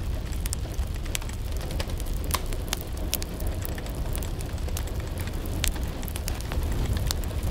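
Intro sound effect: a steady low rumble with many scattered sharp crackles over it.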